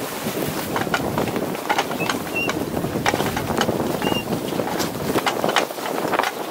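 Wind and a steady rushing noise on the deck of a tall sailing ship under way, with scattered sharp clicks and knocks and two short high squeaks, about two and a half and four seconds in.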